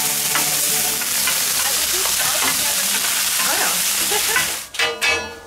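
Wagyu flat iron steak sizzling loudly and steadily on a hot steel fire plate (plancha). The sizzle cuts off sharply near the end, followed by a brief clatter of tongs on the plate.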